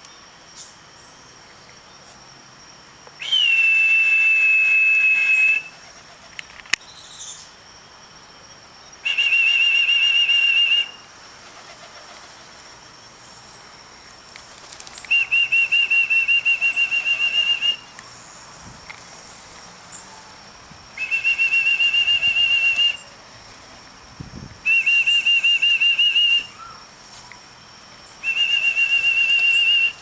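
A trilling whistle blown in six long blasts of about two seconds each, at a steady high pitch. The first blast starts slightly higher and drops.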